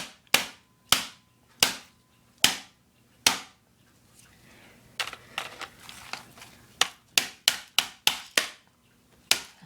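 Sharp cracks and knocks from a laptop being forced apart, about seventeen in all: spaced out at first, then coming faster from about five seconds in.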